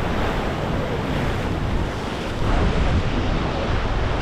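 Wind buffeting the microphone over surf breaking and churning against the inlet jetty, with a stronger gust about two and a half seconds in.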